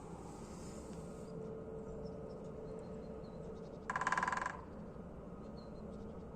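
Woodpecker drumming: a single fast, ringing roll of knocks lasting about half a second, about four seconds in, over a steady low hum.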